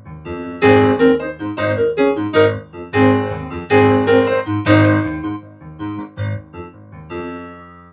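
Piano being played: a run of struck chords and single notes that ring and decay, growing sparser and softer in the last couple of seconds, played as a sound check.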